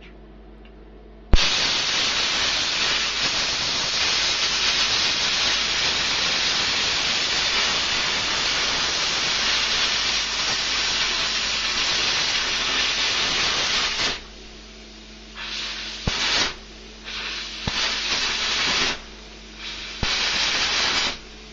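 Air plasma cutter torch firing: a sharp crack about a second in as the arc strikes, then a steady loud hiss of the air-plasma jet cutting through steel for about thirteen seconds. Several shorter bursts of hiss follow as the torch is fired again, some with a crack at the start.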